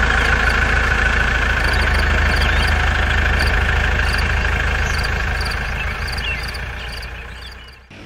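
An engine idling steadily, dying away near the end.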